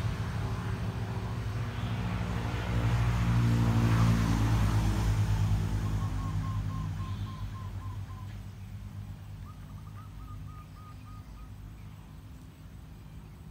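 A motor vehicle's engine running, loudest a few seconds in and then fading away. Later come two short runs of rapid high chirps.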